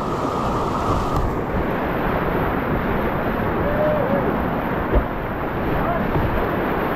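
Rushing whitewater of a river wave as a kayak surfs it: a steady, loud roar of churning water, with wind buffeting the microphone.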